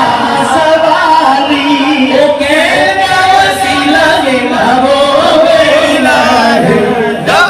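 Devotional Sufi ghazal singing: long, wavering, melismatic sung notes over musical accompaniment.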